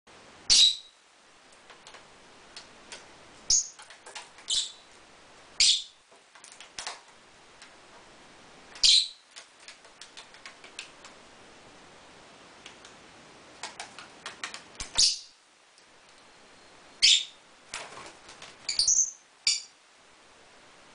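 Pet lovebirds giving short, shrill, high-pitched calls every few seconds, about ten in all, with a quick cluster near the end. Soft, scattered clicks fall between the calls.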